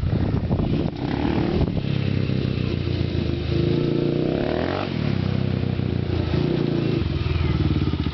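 Honda TRX400EX quad's single-cylinder four-stroke engine, mostly stock, running under throttle. Its pitch rises through the middle and drops back about five seconds in.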